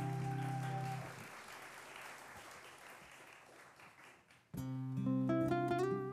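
Steel-string acoustic guitar notes ring out and die away, followed by soft audience applause that fades over about three seconds. About four and a half seconds in, fingerpicked acoustic guitar starts again, with one note rising in pitch.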